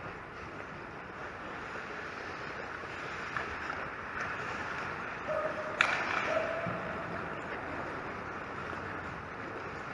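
Ice hockey rink ambience, with skate blades scraping and hissing on the ice, and one sharp crack about six seconds in.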